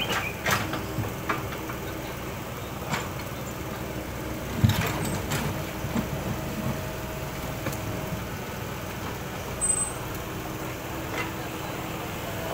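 Compact tracked excavator's diesel engine running steadily while the steel bucket digs in a rocky ditch, with scattered clanks and knocks of the bucket on stones. The loudest knock comes about four and a half seconds in.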